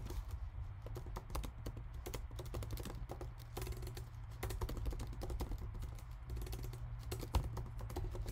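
Typing on a computer keyboard: a quick, irregular run of key clicks, with a steady low hum underneath.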